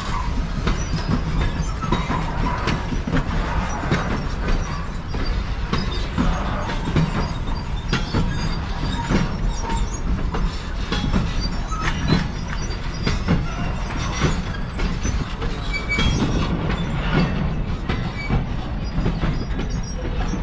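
Freight train wagons rolling past: a steady rumble of steel wheels on rail with rapid clicks and knocks over the rail joints, and brief high wheel squeals now and then.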